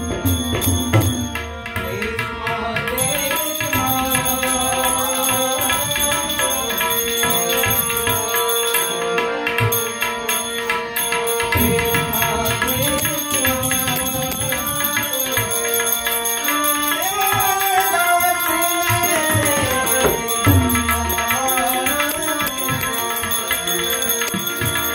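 Harmonium playing a Gujarati bhajan melody in held, stepping notes, with tabla drumming a steady rhythm and small hand cymbals ringing along.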